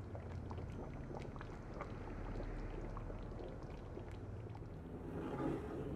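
Thick tomato-and-coconut-milk caldereta sauce simmering in a pan, with small bubbles popping at irregular moments over a low steady hum. It gets briefly louder about five seconds in.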